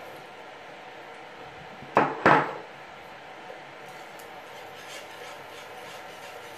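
Two loud clattering knocks of kitchen utensils about two seconds in, then the faint ticking and scraping of a wire whisk stirring a creamy cheese sauce in a frying pan.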